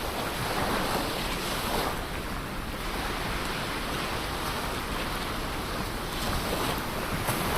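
Ocean waves breaking and washing on the shore, a steady surf wash that swells and eases gently.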